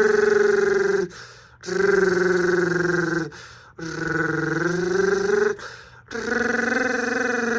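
Federal Enterprises Model 76B mechanical siren with an 8/9-port chopper sounding the attack signal. It gives a loud, chord-like wail in repeated blasts of about two seconds, each cut off sharply with a short gap before the next.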